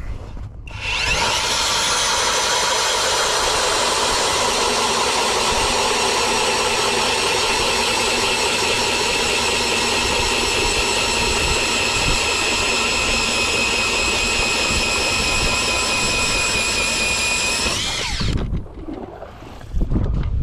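Eskimo E40 electric ice auger drilling a hole through thick lake ice. Its motor starts about a second in with a steady whine, runs for about seventeen seconds, then winds down and stops, followed by a few low thumps and wind on the microphone.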